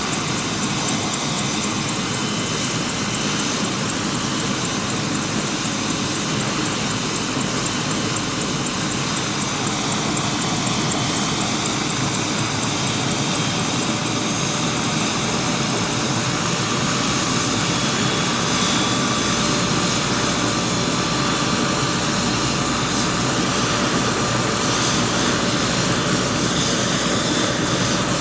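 Helicopter running steadily, its rotor beating fast with a constant high whine over it.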